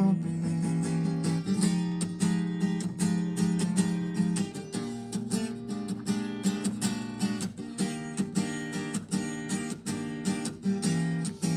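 Acoustic guitar strummed in a steady rhythm of chords, an instrumental passage between sung lines of a song.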